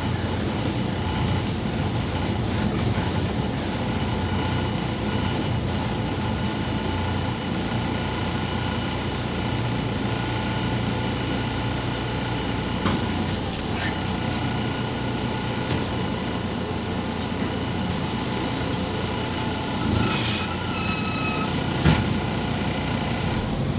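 MAZ 203 city bus in motion, heard from inside: a steady engine and road rumble with faint steady whines. There is a brief louder rattle about midway, and a short high squeal near the end.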